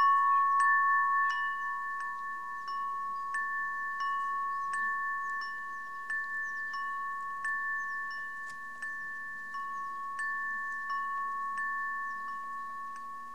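Chimes ringing at a few fixed pitches, struck in an even rhythm about every two-thirds of a second, the ringing slowly growing fainter.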